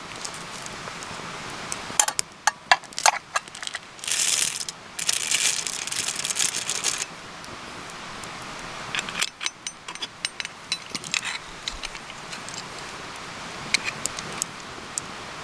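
Wood campfire crackling with scattered sharp pops and clicks, and a loud stretch of hissing from about four to seven seconds in.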